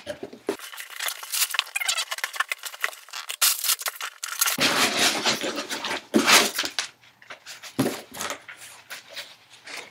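Crumpled brown packing paper and a cardboard box rustling and crinkling as hands dig through the box and pull items out: a continuous run of crackles and rustles, loudest about halfway through.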